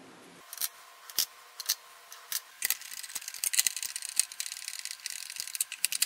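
Plastic parts of a Neato robot vacuum being handled and fitted by hand: a few separate clicks, then from about two and a half seconds in a denser run of small rattling clatters as the trim piece goes onto the underside.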